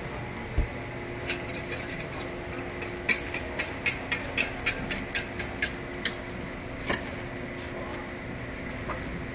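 Metal cooking utensils clicking and tapping: a few scattered knocks, then a quick run of about a dozen sharp taps, roughly three a second, in the middle, over a steady background hum.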